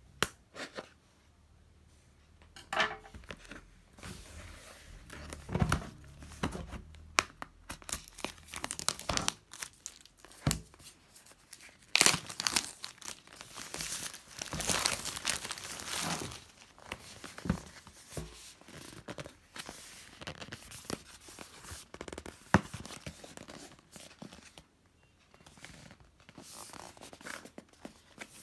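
Retail packaging being opened by hand: irregular tearing, crinkling and rustling of plastic and cardboard, with scattered sharp clicks and taps and a busier stretch near the middle.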